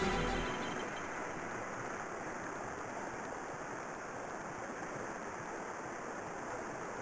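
Shallow rocky river rushing steadily over rapids, a constant even roar of white water. The tail of intro music fades out in the first second.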